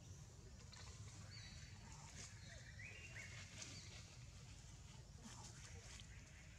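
Faint, scattered short high-pitched animal calls, squeaks and chirps, over a steady low rumble.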